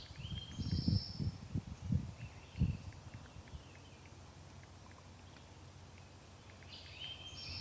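Outdoor ambience: wind buffeting the microphone in low gusts for the first few seconds, birds chirping briefly near the start and again near the end, and a faint steady high-pitched whine.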